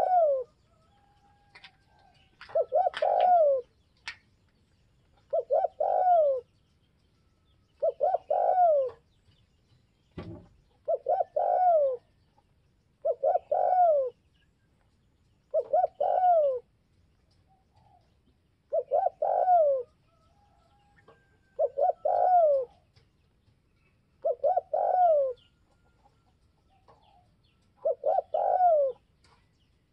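Spotted dove cooing, repeating its phrase about every three seconds. Each call is two or three quick notes ending in a longer falling note. There is a single low thump about ten seconds in.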